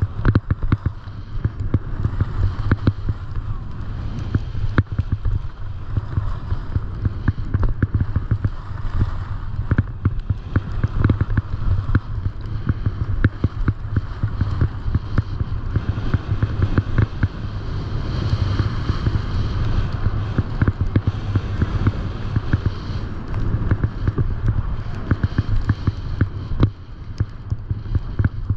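Wind rumbling over a GoPro 8 Black's microphone while the rider slides downhill, with the hiss and scrape of edges on snow and many small irregular knocks from chattering over the snow surface.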